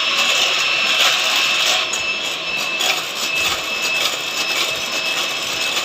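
Electric hand mixer running steadily with a high whine, its beaters whipping eggs, sugar and oil into cake batter.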